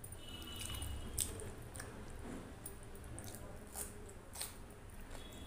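Close-miked eating sounds: wet squishing of rice mixed with sambar being taken up by hand, and chewing with soft smacks and clicks. A low steady hum runs underneath.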